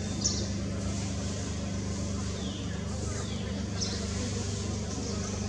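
Outdoor ambience: a steady low hum, with a few short high chirps and two brief falling sweeps near the middle.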